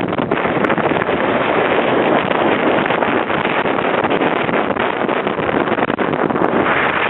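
Steady rush of wind buffeting the microphone aboard a motorboat under way, with the boat's running noise mixed in.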